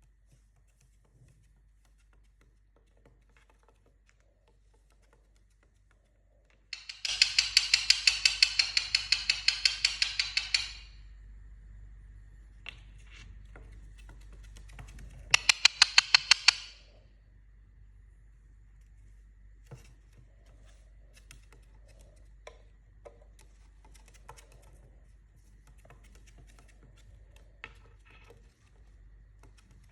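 Indian ringneck parakeet giving two runs of rapid, harsh, repeated calls, about five a second. The first run lasts about four seconds, and a shorter one of about a second and a half comes near the middle.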